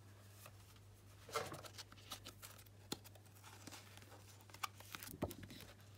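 Quiet handling of a stack of paper and card: a soft rustle, a sharp tick and a few light knocks, over a low steady hum.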